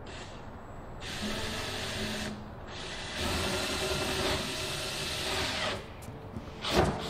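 Cordless drill drilling into a wooden board in two runs, a short one about a second in and a longer one of about three seconds. A sharp knock near the end.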